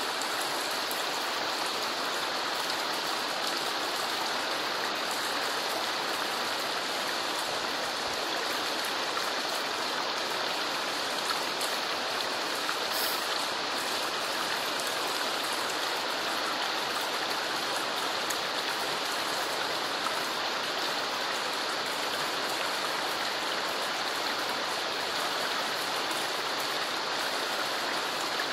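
River water running over rocks: a steady, even rush that does not change.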